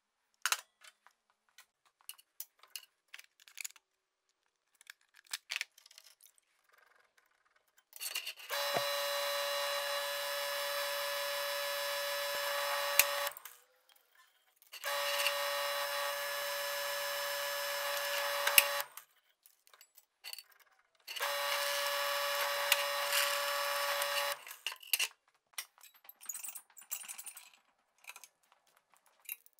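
Drill press motor running in three separate runs of about four seconds each, a steady whine with no change in pitch, as holes are drilled in a metal part. Between the runs, light clicks and taps of metal parts being handled.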